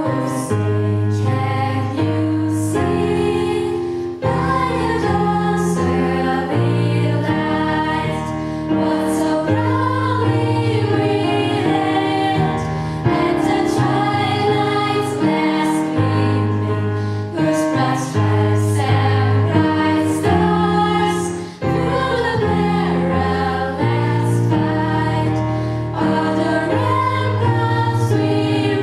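A group of female voices singing together over an instrumental accompaniment with sustained chords and a steady bass line.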